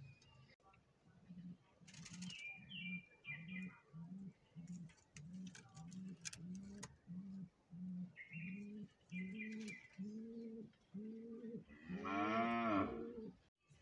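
Domestic pigeons calling: a steady run of low coo-like notes about two a second, with two short groups of high squeaky peeps, and a louder, longer call near the end.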